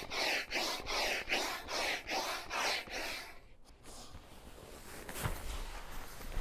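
Hand pump inflating an air awning's tubes, each stroke a whoosh of air at about two strokes a second. The strokes stop a little over three seconds in, leaving a fainter hiss.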